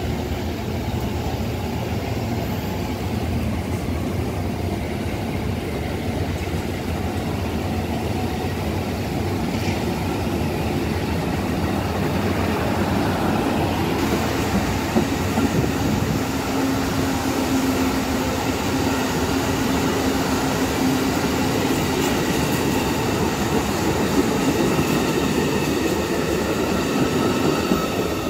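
Amtrak passenger cars rolling past at close range: a steady rumble of wheels on rail, joined about halfway through by a high squeal of several tones that lasts to the end.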